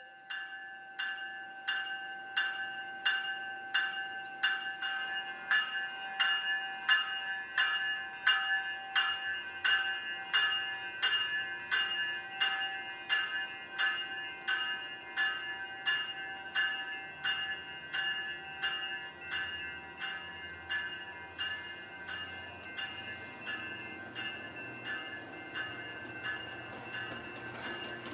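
A railroad bell ringing in an even rhythm, about two strikes a second, each strike ringing on, growing fainter near the end, over the low rumble of a train.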